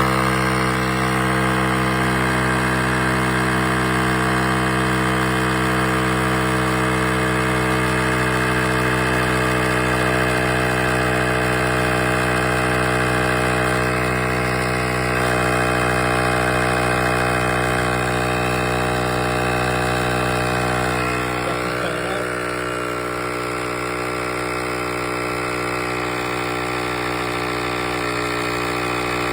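NUSTE portable electric tire inflator running steadily with an even, pitched motor-and-pump hum, pumping a truck tire from about 52–55 PSI toward a preset 70 PSI. It gets slightly quieter about two-thirds of the way through.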